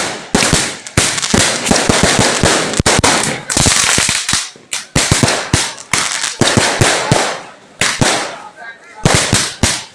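Fireworks going off: a dense, irregular string of loud sharp bangs and crackles, coming in clusters with a few short lulls.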